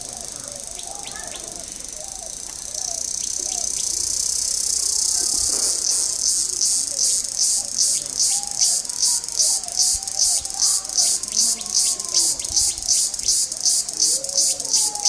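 High-pitched insect buzzing, steady at first, growing louder a few seconds in and then pulsing about three times a second. Birds call faintly beneath it.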